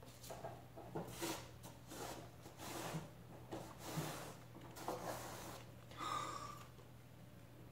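Rabbit eating dry food mix from a ceramic bowl: soft, irregular crunching and rustling as it chews.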